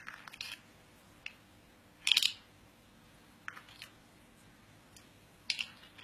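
Short plastic clicks and clatters in small clusters as a green-cheeked conure pecks at and shifts the lids of a plastic colour-matching toy, the loudest rattle a little after two seconds in.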